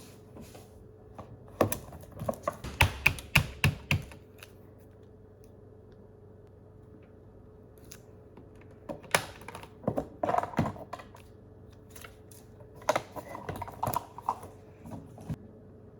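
Typing on a computer keyboard in three short bursts of rapid key clicks, with pauses between them.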